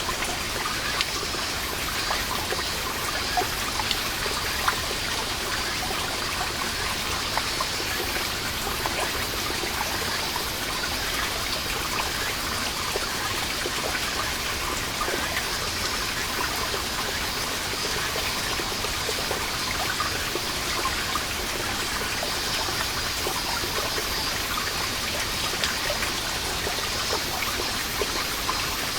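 Water drops falling from a seeping moss wall, many small drips landing continually with the odd louder one, over a steady chorus of cicadas.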